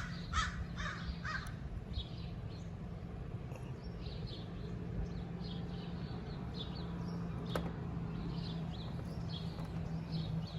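Birds calling outdoors: a run of harsh, repeated caws in the first second and a half, then fainter repeated calls through the rest, over a low steady hum.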